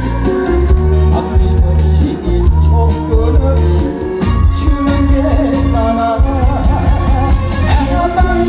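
A man singing a Korean song into a handheld microphone over amplified backing music with a heavy, steady bass beat.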